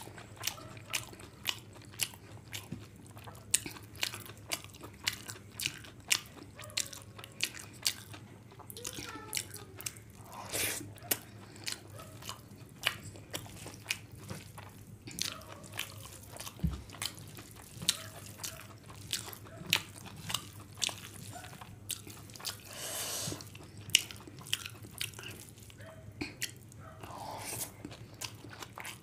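Close-miked chewing of a mouthful of veg fried rice: a steady run of short wet smacks and clicks, two or three a second.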